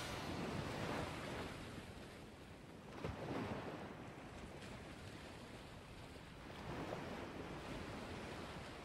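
Faint sea waves washing in, a steady hiss that swells softly now and then.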